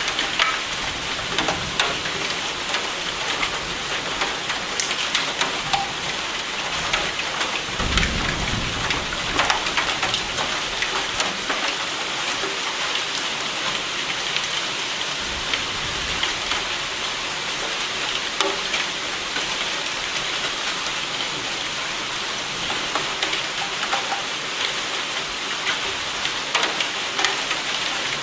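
Steady heavy rain with many sharp individual drop hits. A low rumble of thunder comes about eight seconds in and lasts a couple of seconds, and a fainter rumble follows about halfway through.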